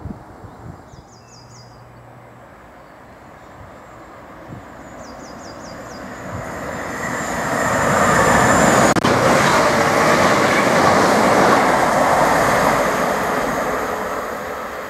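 Class 333 electric multiple unit passing through on the rails: the rumble of wheels and running gear swells as it approaches, is loudest for a few seconds past the middle, then fades as it runs away.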